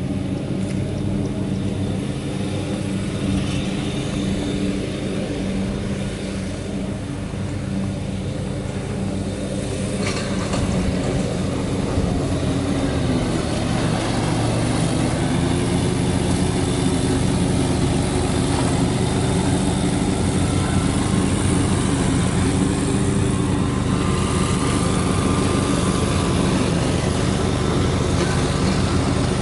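A Ford F-550 Super Duty truck's engine idling steadily, its low even note shifting slightly about halfway through.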